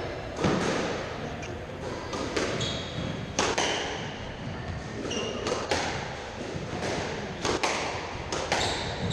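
A squash rally: the ball cracks off rackets and the court walls with sharp, echoing hits every one to two seconds, and sports shoes squeak briefly on the wooden floor between shots.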